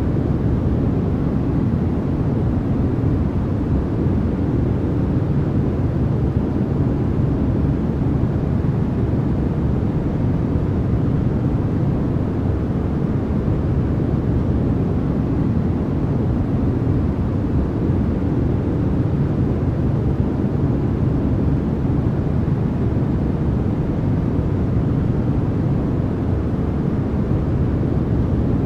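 Continuous white-noise track: a steady, even rush with no rhythm or tones, weighted toward a deep low rumble with only a soft hiss on top.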